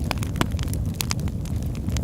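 Campfire crackling: irregular sharp pops and snaps over a steady low rumble of burning, with a couple of louder snaps.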